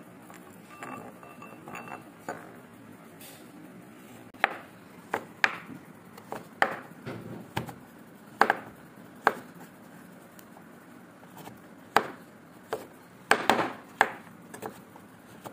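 Kitchen knife chopping a bar of chocolate on a wooden cutting board. From about four seconds in there is a dozen or so sharp, irregular knocks as the blade cracks through the chocolate and strikes the board.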